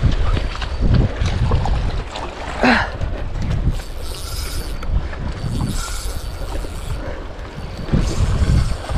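Wind buffeting the microphone as a steady low rumble, with a few swells of hissing sea wash.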